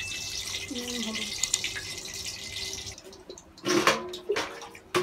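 Water pouring from a jug into an aluminium pressure cooker packed with greens and potatoes, splashing steadily, then stopping about three seconds in. A couple of short knocks follow near the end.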